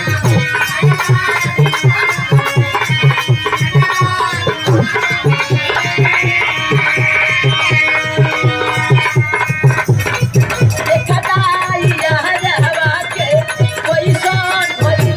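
Live folk stage music: a steady beat on a hand drum of the tabla or dholak kind, with a melodic instrument line over it.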